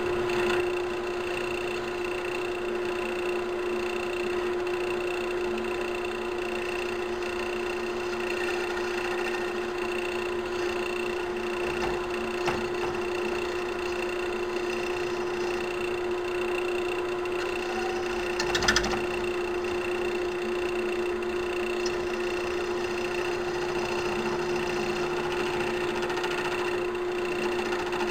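Central Machinery wood lathe running at a steady speed with a steady motor hum, while a cutter held in locking pliers turns down a spinning brass pen centre band. One brief louder noise about two-thirds of the way through.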